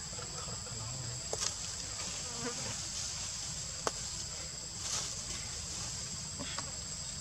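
A steady, high-pitched drone of insects, with a few sharp clicks; the loudest click comes about four seconds in.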